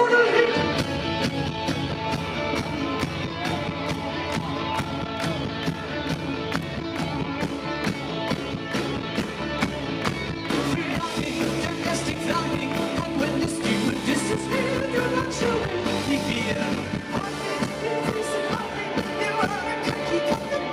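Live rock band playing: drums keep a steady beat under electric guitar, with a male lead vocal.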